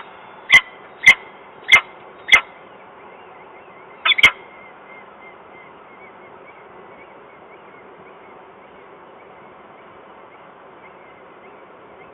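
Peregrine falcon calling: five short, sharp calls about half a second apart, then a quick double call about four seconds in. Faint chirps and a steady hiss lie under them.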